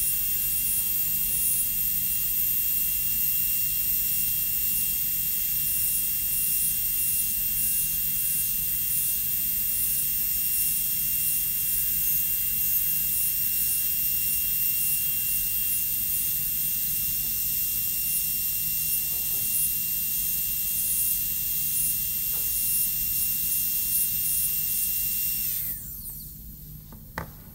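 High-speed dental drill handpiece running with a steady high whine as its bur cuts down a cusp of a plastic model maxillary first molar during an amalgam cavity preparation. About 26 seconds in it spins down, falling in pitch, and stops.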